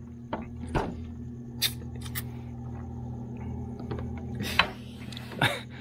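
A few light clicks and knocks as empty glass shot glasses and lime wedges are set down on a wooden table, the sharpest a little past four and a half seconds in, over a steady low hum.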